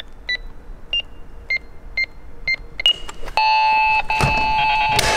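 Door-entry keypad beeping six times, about twice a second, as a code is keyed in, then a loud electronic buzz lasting about two seconds as the door lock releases, with a sharp click near the end.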